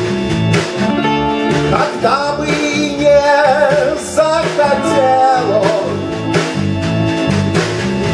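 Live rock band playing at full level: electric guitar and bass guitar over a steady beat. A singer's voice comes in over the middle of the passage.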